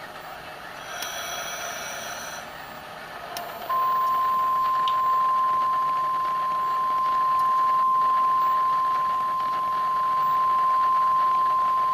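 A single steady electronic beep tone, one unchanging pitch, switching on abruptly about four seconds in and holding loud and unbroken over a faint noisy background of mixed sounds. Shortly before it, a brief cluster of high tones rings out for about a second and a half.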